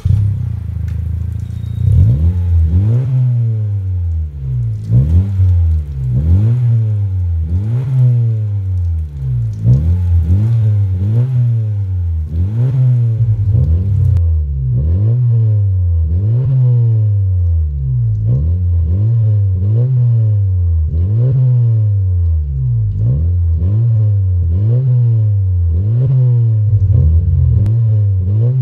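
2022 Honda Civic RS's 1.5-litre turbocharged four-cylinder engine revved in repeated blips while parked, heard through an aftermarket catback exhaust with dual tips. The revs come irregularly at first, then settle into a steady rhythm of about one blip a second.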